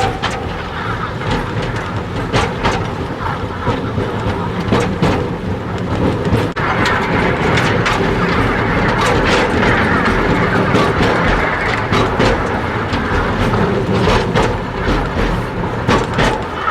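Narrow-gauge (760 mm) forest railway steam train running, its wheels clicking over the rail joints amid the rumble and hiss of the moving train. The hiss grows denser about six seconds in.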